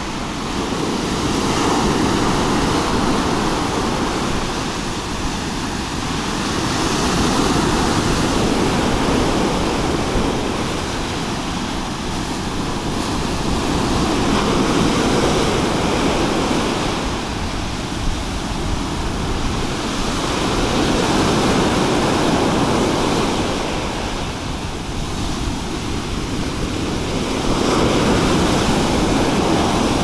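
Sea surf on a pebble beach: waves breaking and washing up the shore, swelling and easing in about five slow surges roughly six seconds apart.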